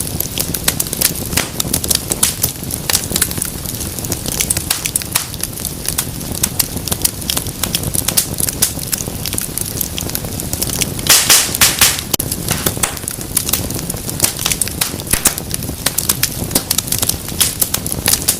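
Wood fire in a fireplace crackling and popping over a steady low rumble of burning, with a quick run of louder pops about eleven seconds in.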